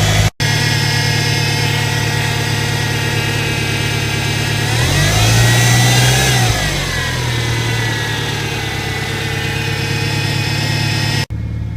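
Subaru Impreza GDB's turbocharged flat-four idling on a cold start, with a whine from the power steering pump over the engine note; about five seconds in the engine and whine rise in pitch briefly, then settle back. The whine is taken by the owner for a faulty power steering pump, a common Impreza fault, and it fades once the car has run a while.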